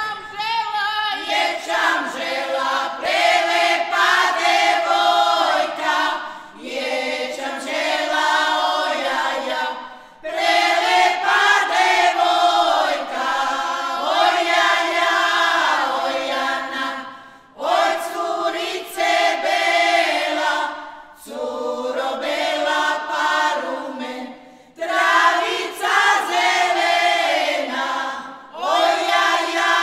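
Small group of women singing a traditional Turopolje folk song a cappella, in sung phrases of a few seconds each, broken by short pauses.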